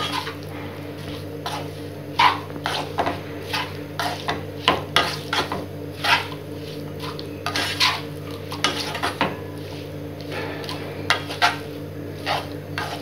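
Spatula scraping and knocking against a nonstick kadai as chopped onions and tomatoes are stirred and sautéed, in quick irregular strokes. A steady low hum runs underneath.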